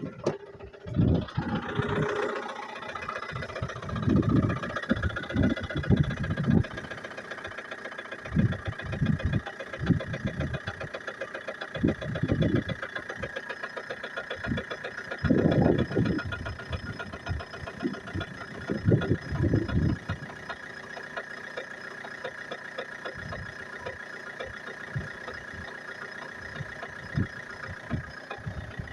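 Opel Antara's 2.2 four-cylinder diesel idling just after a cold start, with a fast steady knock running under the engine note: the cold-start knock the owner is showing. Irregular deep thuds come and go over the first twenty seconds or so, then the idle settles and steadies.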